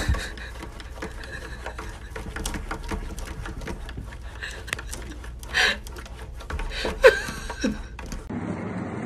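A cat's paws and claws tapping and scraping on window glass: a rapid run of light clicks and taps, with a couple of louder knocks.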